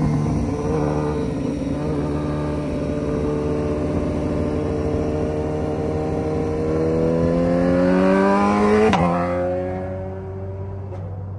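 BMW HP4's inline-four engine through a full aftermarket exhaust, running at a steady pitch, then revving up over a few seconds to a sharp break near the end, after which the pitch falls and the sound grows quieter.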